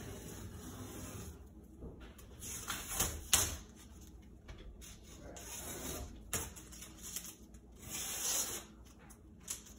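Painter's tape being peeled off painted glass in several short noisy pulls, with a sharp tick a little over three seconds in.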